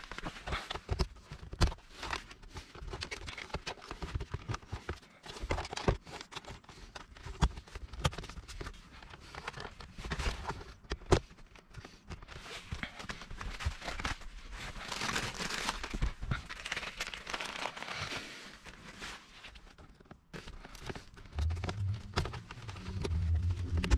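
Hands working wiring and plastic trim in a car's footwell: irregular clicks and knocks, with rustling that is strongest around the middle. A low hum comes in near the end.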